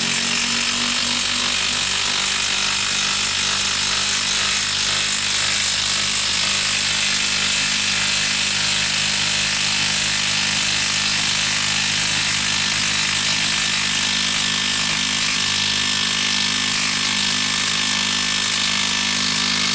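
DeWalt DCF894 cordless 1/2-inch impact wrench hammering without a break as it drives a 10-inch lag screw into a wooden log round.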